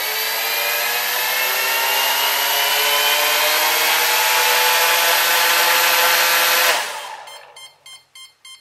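Cheerson CX-20 quadcopter's three working brushless motors spinning their props at low throttle, a steady whir slowly rising in pitch, which cuts out about seven seconds in and spins down. Then a string of rapid short beeps from the fourth motor, which will not power up: a fault that points to a bad ESC board or motor.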